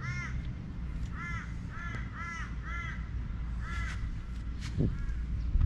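A crow cawing: a series of about seven short, arched calls, spaced irregularly, over a steady low rumble.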